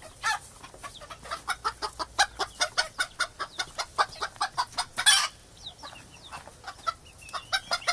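Hen clucking: a quick run of short clucks, about four or five a second, broken by one longer, louder squawk about five seconds in, then a few softer clucks.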